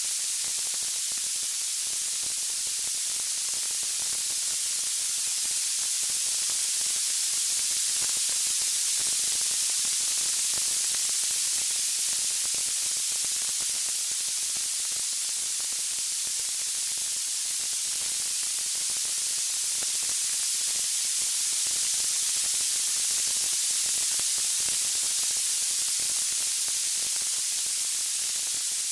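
Steady high-pitched hiss of white noise that swells and eases slightly, with no distinct pops or crackles.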